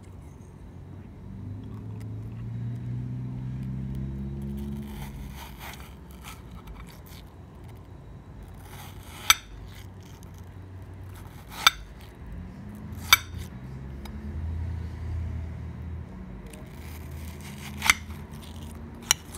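Metal spoon scooping and scraping the soft flesh of a halved watermelon, with five sharp clicks of the spoon spread through the second half. A low hum swells and fades twice in the background.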